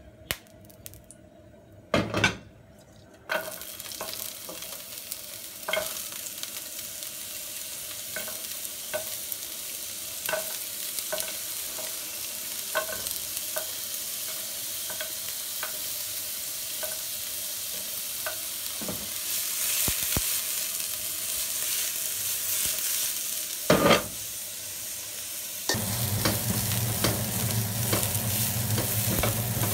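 Diced carrots stir-frying in hot oil in a nonstick wok: a steady sizzle with light, regular spatula taps. A loud knock comes near the end, then the sizzle grows fuller as the stirring continues. The first few seconds are nearly quiet apart from a couple of knocks.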